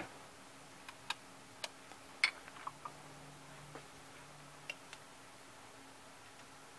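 Vintage Dual CS1257 belt-drive turntable running with a faint low hum, and about a dozen light, irregular clicks and ticks. The sharpest click comes a little over two seconds in.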